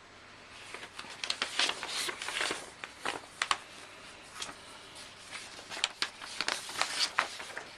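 Paper and packaging being handled: irregular rustles, crinkles and small clicks.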